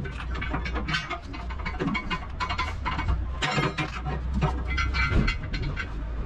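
Steady low rumble of a heavy-vehicle engine running, with scattered metallic knocks and clanks from work at a semi-trailer's wheel.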